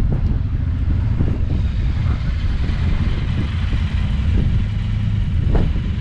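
Harley-Davidson Fat Bob's V-twin idling through a KessTech ESM3 exhaust, a steady deep rumble, with a short knock near the end.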